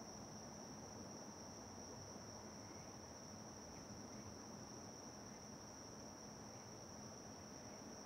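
Faint, steady high-pitched chirring of crickets, with no break, over a weak low hum.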